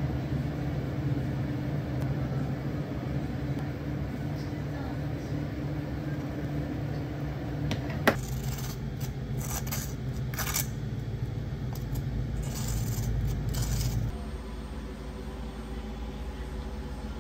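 Steady hum of café equipment, then a sharp click about halfway through followed by several seconds of light, bright clinking, like utensils, cups or ice being handled. Near the end part of the hum cuts off and it gets a little quieter.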